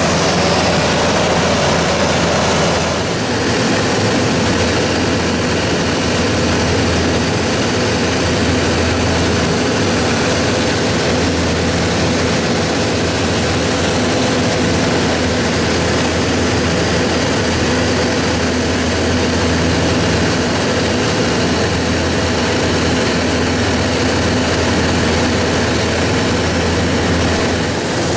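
Steady cabin noise of an aircraft in flight, heard from inside through the window seat: a continuous engine and airflow roar with a low hum, briefly dipping about three seconds in.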